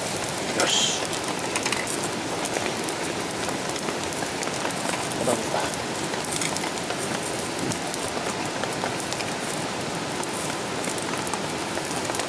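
Slices of heart and offal sizzling over a small charcoal grill: a steady sizzle with fine crackling, and one louder crackle about half a second in.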